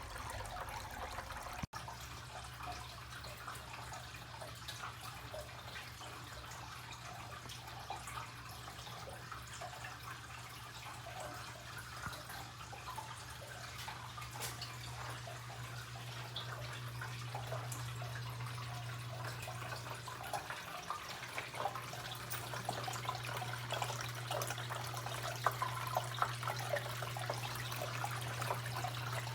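Cascading water fountain running: water trickling and splashing steadily down its tiers, with a steady low hum from the electric water pump underneath.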